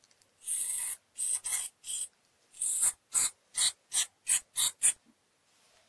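Aerosol spray can hissing in about eleven short squirts, the first few longer and the rest quick, about three a second, as thinner is sprayed onto the lock oil on the gears of a GU multipoint lock so that the oil runs thinner and spreads better.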